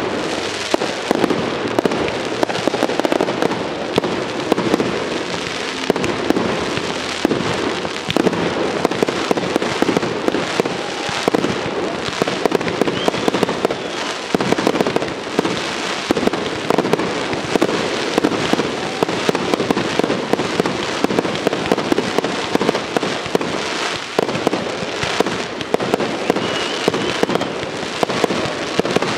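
Aerial fireworks display: a dense, unbroken barrage of crackling, popping bursts and launches from many shells and comets going off at once, with now and then a short faint whistle.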